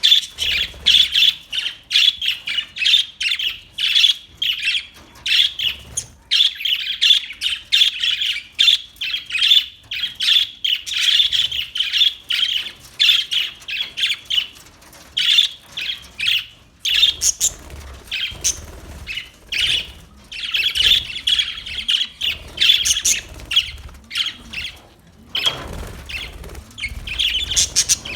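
Budgerigars chirping and chattering in a dense, continuous stream of quick high calls, with a few brief pauses.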